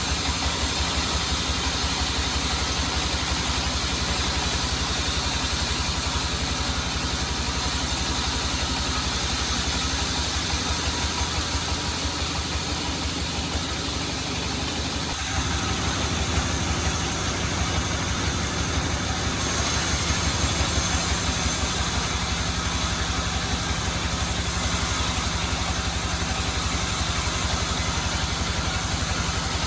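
Sawmill engine running steadily, with an even pulsing beat. The sound shifts slightly about halfway through.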